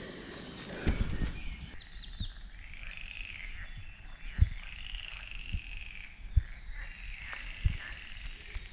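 Birds calling in the forest, a series of rising-and-falling notes, with the soft irregular thuds of footsteps on the leaf-littered forest floor; one footstep about four seconds in is the loudest sound.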